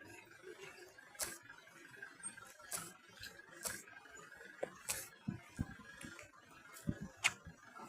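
Footsteps of a person walking, heard as a loose series of sharp ticks about once a second, some with a dull thud, over a faint steady background tone.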